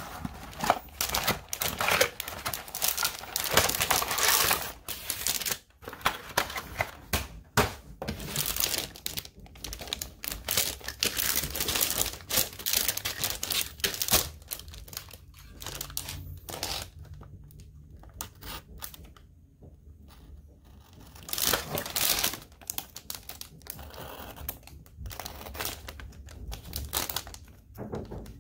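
Cellophane and plastic bag packaging crinkling and rustling in irregular bursts as it is handled. It goes quieter for a few seconds past the middle. Near the end a hobby knife scrapes and cuts through a plastic bag.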